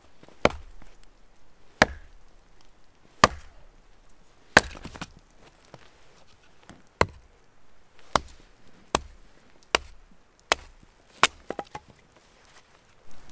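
Small hatchet chopping firewood into kindling: about a dozen sharp chops into wood, roughly one a second and a little quicker near the end.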